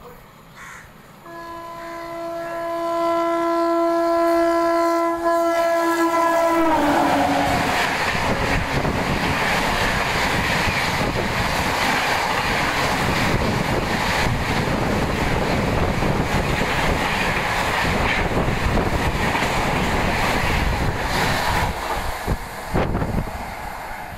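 A WAP-7 electric locomotive's horn sounds one long blast of about five seconds, its pitch dropping sharply as the locomotive passes. The train's coaches then run through at high speed with a loud, continuous rumble and wheel clatter that eases off near the end.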